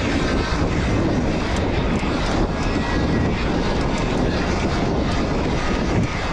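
Steady rush of wind and knobby tyre noise as a Trek Stache 7 mountain bike rolls fast down dirt singletrack, with faint small clicks and rattles from the bike and trail through it.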